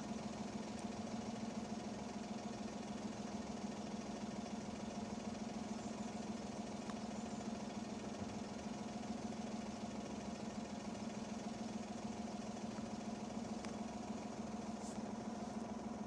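An engine idling with a steady, unchanging low hum.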